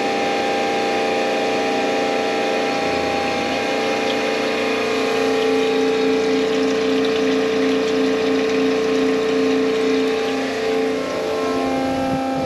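A motor running steadily, a hum of several held tones that shifts to a new, slightly louder pitch about three seconds in and changes again near the end.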